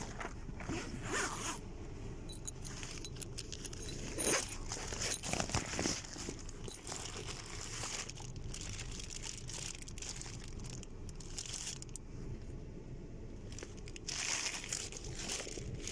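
Irregular rustling and crinkling handling noise with scattered clicks and scrapes, louder in short bursts a few times.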